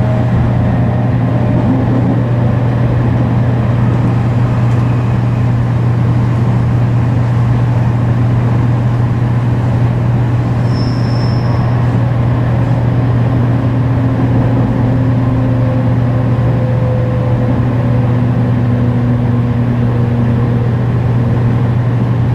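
Running sound of a JR Kyushu 813 series electric train, heard aboard its motor car with Toshiba GTO inverter control: a steady deep low hum throughout, with fainter motor tones drifting slowly down in pitch in the second half. The uploader suspects the deep low sound at mid speeds is an abnormal noise, though he says it may be normal.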